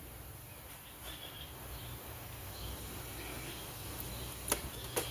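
Faint scraping and light tapping of hands and a tool on a chainsaw's stuck reed block, with two sharp clicks near the end.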